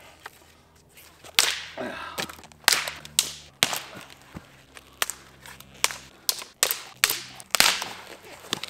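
Dead firewood branches snapping with sharp, solid cracks as they are broken underfoot, about a dozen cracks at irregular intervals. The crisp cracks are a sign of dry wood.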